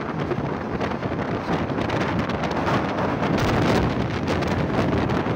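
Steady rush of wind on the microphone from the moving Thal Express passenger train, with the train's running noise underneath.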